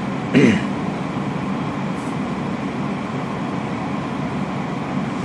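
Steady low drone of background room noise. About half a second in, a brief sound falls in pitch.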